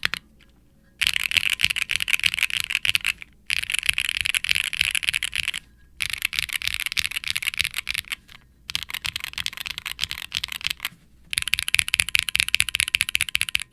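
Fast typing on a Wilba.tech Salvation mechanical keyboard with HMX Sonja linear switches and GMK double-shot ABS keycaps: rapid runs of bright clacking keystrokes in bursts of a few seconds, each burst separated by a short pause. The case has no dampening, which leaves the clack somewhat resonant.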